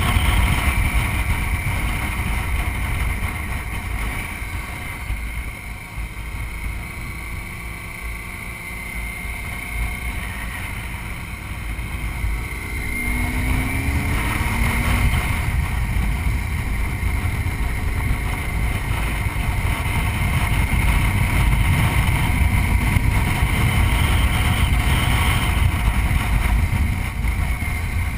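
BMW motorcycle engine running at road speed under heavy wind noise on the microphone, quieter for a stretch about five seconds in, then the revs climbing and the engine pulling harder again from about thirteen seconds.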